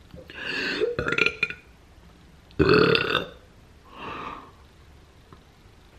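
A woman burping, with the loudest burp about two and a half seconds in, followed by a soft, muffled laugh behind her hand.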